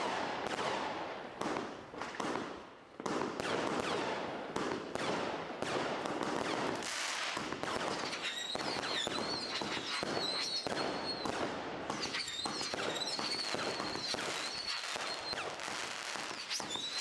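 Chained heavy consumer fireworks cakes firing a rapid series of shots with dense crackling. From about eight seconds in, a wavering high whistle sounds over the crackle.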